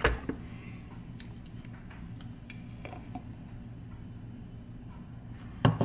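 A glass blender jar knocks as it is lifted, then a thick protein shake is poured from it into a drinking glass with soft wet sounds and faint clinks. There is another knock near the end.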